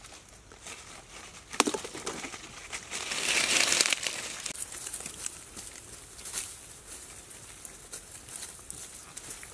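A pig rooting and trampling through dry leaf litter: dry leaves crackling and rustling, with a sharp crack about one and a half seconds in and a louder rush of rustling around three to four seconds in.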